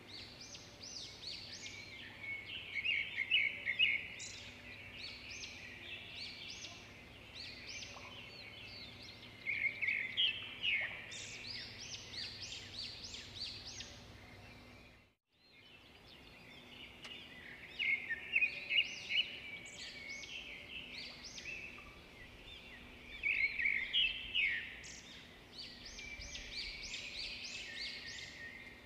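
Birds chirping in bursts of quick, high calls over a faint steady hum. The sound drops out completely for a moment about halfway through.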